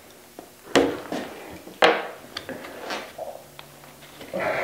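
Sharp clicks and knocks from working loose the oil filler cap on a Makita MAC5200 air compressor's pump by hand. Two loud knocks come about a second apart, followed by several lighter ticks.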